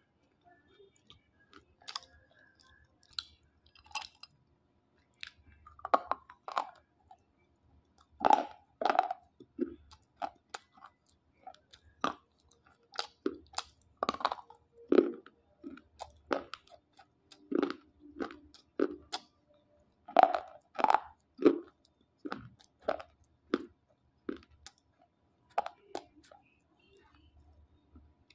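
Dry slate pencils bitten and chewed: a run of irregular, sharp crunches as pieces snap off and grind between the teeth.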